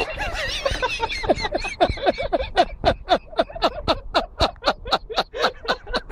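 Men laughing hard together: a long, rapid run of falling 'ha' pulses, about four to five a second, with voices overlapping.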